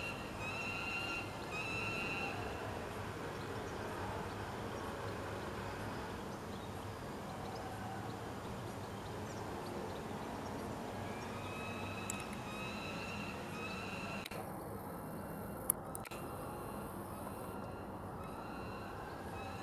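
Juvenile peregrine falcon begging cries: short, even calls repeated just over one a second over a low steady background rumble. The calls stop about two seconds in and start again about eleven seconds in. A single sharp click sounds near the end.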